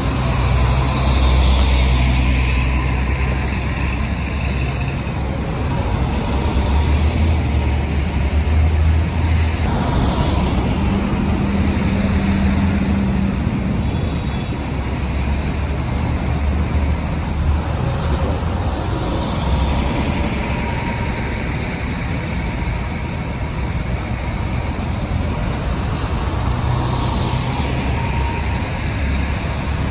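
Diesel engines of commuter coach buses running steadily as several buses pull past one after another, with a low drone and the hiss of passing traffic swelling and fading.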